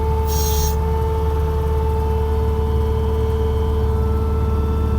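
New Holland L220 skid steer's diesel engine running steadily, heard inside the cab, with a steady whine over the hum. A short hiss about half a second in.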